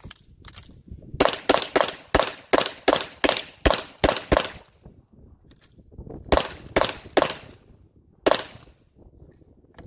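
Pistol shots fired in rapid strings: about a dozen shots in roughly three seconds, then after a pause of nearly two seconds four more, and one last single shot about a second later.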